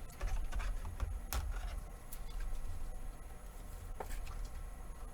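Trading cards being handled and flipped through on a table: light rustling and taps, with a sharp click about a second and a half in and another about four seconds in.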